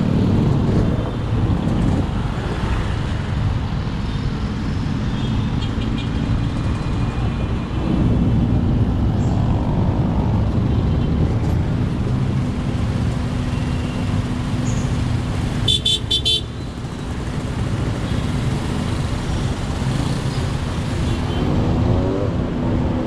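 Slow-moving city traffic heard from a motorcycle: a steady low rumble of engines and road noise, with a short, high-pitched horn toot about two-thirds of the way through.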